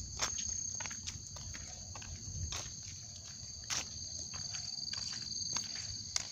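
A steady, high-pitched insect chorus drones in the forest, while footsteps crunch and rustle irregularly on a leaf-strewn dirt track.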